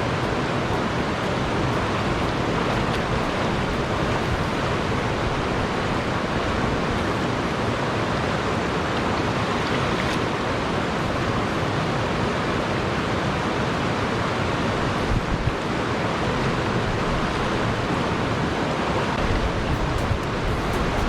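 River water rushing steadily, a loud even rush close to the microphone.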